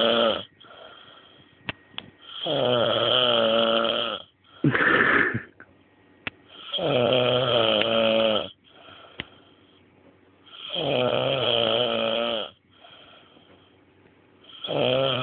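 A man asleep after heavy drinking, snoring loudly: long, pitched snores of about two seconds each, coming roughly every four seconds, with quieter breathing between them and a shorter, sharper snort between the first two.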